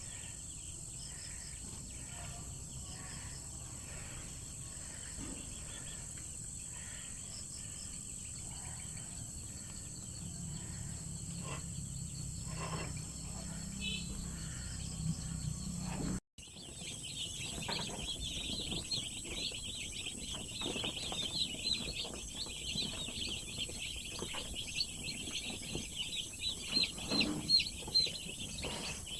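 Rural outdoor ambience: a steady high insect drone with a low hum, then, after a sudden break about halfway, dense continuous chirping of many birds.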